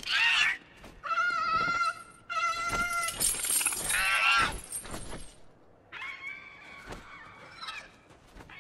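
A young dragon screeching: a run of shrill, pitched cries about a second each, the longest and loudest near the middle, then softer cries near the end.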